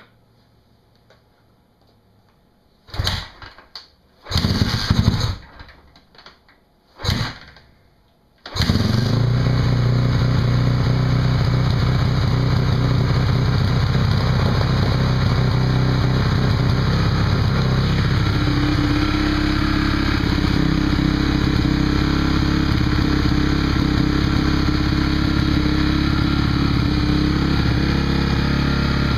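Honda CRF450R four-stroke single-cylinder dirt bike engine being kick-started: three loud bursts as it is kicked over, then it catches about eight seconds in and settles into a steady idle.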